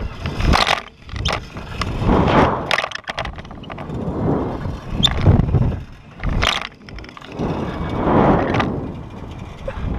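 Air rushing over the microphone in repeated swells about every two seconds, with sharp clicks and knocks, as the slingshot ride's cage swings and bounces on its bungee cords after the launch.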